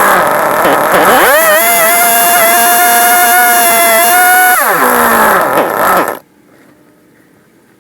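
Stihl MS290 two-stroke chainsaw, fitted with a replacement aftermarket carburetor, idling and then revved up to a steady high speed about a second in. It holds there for about three seconds and drops back to idle. The sound cuts off suddenly about six seconds in.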